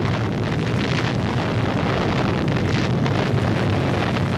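Steady, heavy rumble with a hiss on top: the drawn-out sound of an atomic bomb blast.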